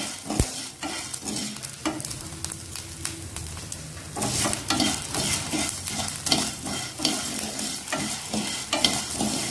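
A spatula scraping and stirring through sago pearls roasting in a little ghee in a pan, in repeated strokes over a light sizzle. The pearls are near the end of roasting, puffing up into balls.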